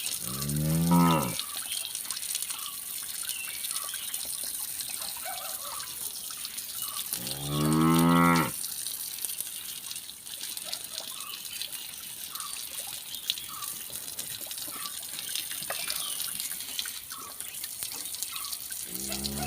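A cow mooing: two moos of about a second each, some seven seconds apart, and a third starting right at the end.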